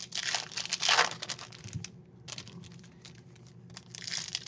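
Foil wrapper of a trading card pack being torn open and crinkled by hand. The rustling is loudest in the first second or so, dies down in the middle, and picks up again near the end.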